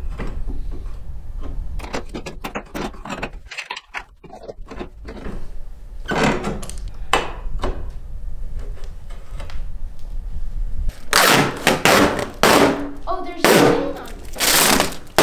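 Clicks and knocks of a hand wrench tightening a bolt and nut on a steel basketball pole bracket, over a steady low rumble. About eleven seconds in, loud crinkling and crackling takes over as the protective plastic film is peeled off a clear polycarbonate backboard.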